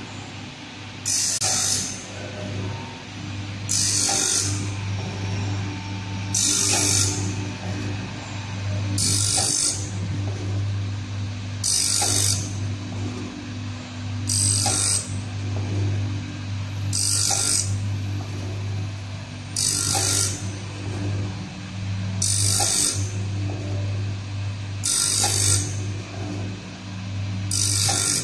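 Vertical band saw blade sharpening machine running: its electric motor hums steadily while the grinding wheel grinds one tooth after another, a short grinding sound about every two and a half to three seconds. Each grind begins with a small mechanical click as the feed advances the blade to the next tooth.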